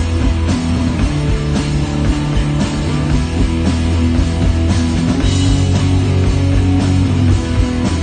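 Live rock band playing loud, with electric bass, electric guitar and a drum kit keeping a steady beat.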